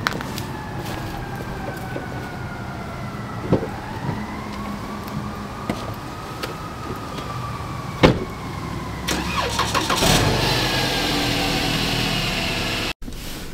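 A car door shutting with a sharp thud about eight seconds in, then a sedan's engine cranking and starting about two seconds later and running steadily. A faint tone glides slowly down and back up beforehand.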